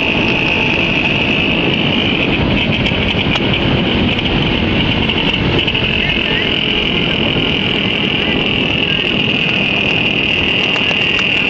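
Small motorcycle engines running steadily at road speed, with a steady high-pitched whine over the engine noise.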